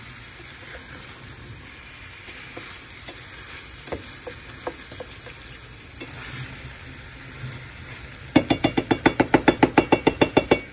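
Sliced zucchini and yellow squash sizzling in a stainless steel skillet while being stirred, with a few light knocks. Near the end, a fast run of loud clacks, about eight a second for two seconds, as the spatula works against the pan.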